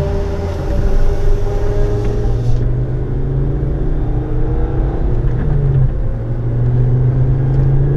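Ford Focus ST engine heard from inside the cabin, pulling steadily under acceleration with its pitch slowly rising and a brief dip about six seconds in. A high hiss over it cuts off about two and a half seconds in.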